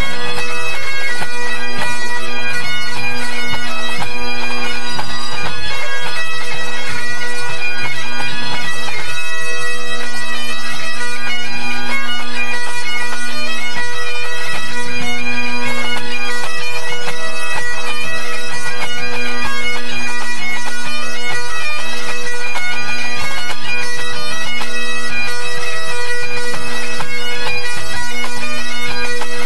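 A pipe band's Great Highland bagpipes played together in a tune-up, several chanters running through melody over a steady, unbroken drone, loud.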